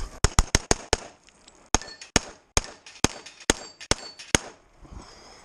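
Pistol shots from a CZ 75 Tactical Sport Orange: a fast string of about five shots in the first second, then about seven more spaced roughly half a second apart.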